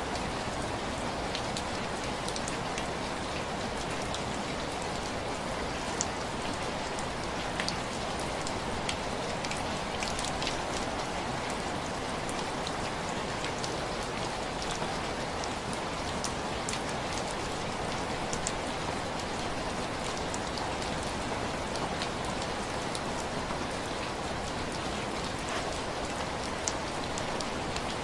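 Heavy rain falling steadily: an even hiss with scattered sharp little ticks throughout.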